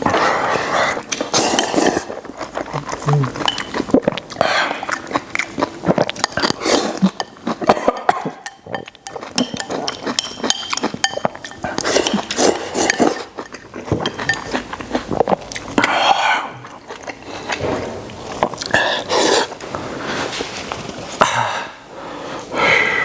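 Close-miked eating sounds: a man chewing and slurping pig intestines, with many irregular wet mouth clicks and occasional light clinks of utensils against a dish.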